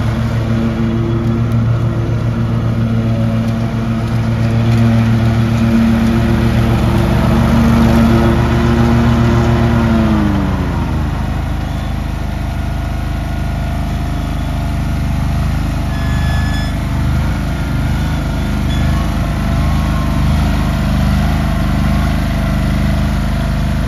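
Cub Cadet lawn tractor's engine running steadily as it is driven. About ten seconds in, the engine speed falls smoothly, and it runs on at a lower, steady speed.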